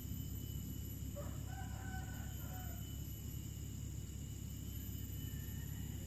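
A rooster crows once, faintly, about a second in, the call lasting about a second and a half, over a steady high insect drone.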